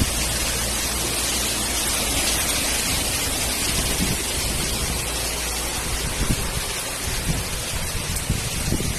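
Heavy rain pouring down steadily over a flooded street, with a low rumble in the first four seconds or so that then fades out.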